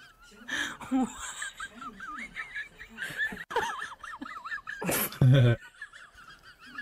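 Laughter and bits of talk from prank video clips, over a wavering high-pitched tone that keeps recurring. There is a short loud burst about five seconds in.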